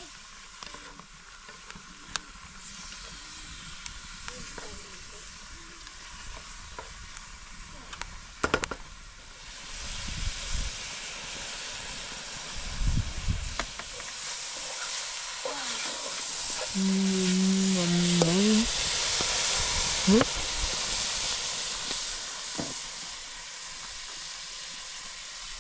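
Food sizzling as it fries in an oiled pan over a wood fire. The sizzle is steady and grows louder about halfway through. A few clicks and scrapes come from the spoon as the food is stirred.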